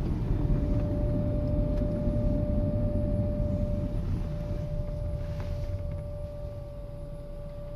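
2005 Volvo S80 making a steady, high-pitched whine at one unchanging pitch while coasting off the throttle, over a low road rumble that fades as the car slows. The whine does not follow engine speed or road speed, and it goes away when the gas is pressed.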